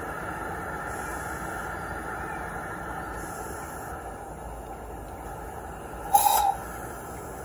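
5-inch gauge live-steam LNER B1 locomotive running along the track with a steady noise; about six seconds in, a short loud blast of steam, lasting under half a second, as a valve on the backhead is worked.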